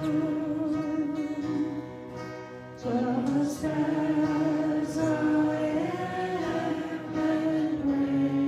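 A group of voices singing a slow hymn in long held notes, with a short pause between phrases about two seconds in before the singing comes back in.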